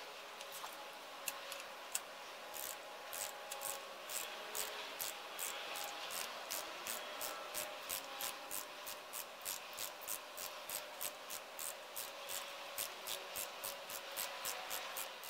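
Spark plug being threaded back into the cylinder head with a socket and extension turned by hand: a faint, rhythmic rubbing scrape of about three strokes a second, starting about two seconds in.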